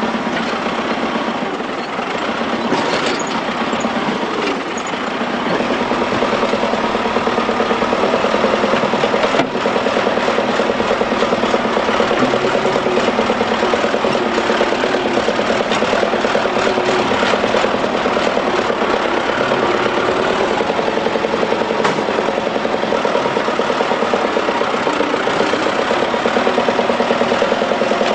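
Heavy diesel engines of a crawler bulldozer and a large wheeled tractor running hard under load as they push against each other, shoving a heap of soil. The engine noise grows louder about six seconds in and then holds steady.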